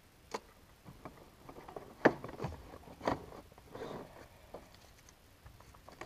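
Packaging being handled as a control box is pushed back into its box: a few sharp knocks and bumps, the loudest about two seconds in, with some rustling of packing material.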